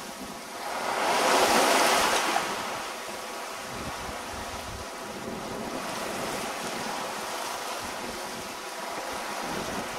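Sea water rushing past a sailing yacht's hull under way, with wind on the microphone. About a second in, a louder rush swells and fades over a couple of seconds, then the steady wash goes on.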